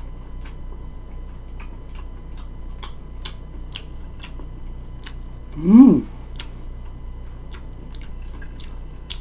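A clock ticking about twice a second, under soft chewing of fried imitation-crab stick. About six seconds in comes a short hum that rises and falls in pitch, the loudest sound.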